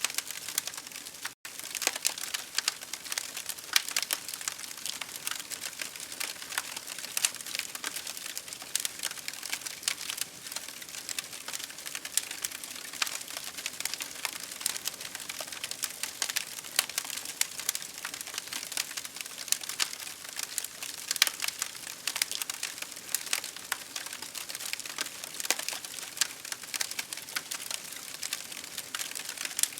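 Campfire crackling and popping in dense, irregular clicks over a steady hiss of rain. The sound drops out for an instant about a second and a half in.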